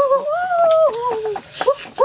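Machete blade chopping pork on a wooden block, several short knocks, under a high whimpering cry drawn out in two long wavering notes that is the loudest sound.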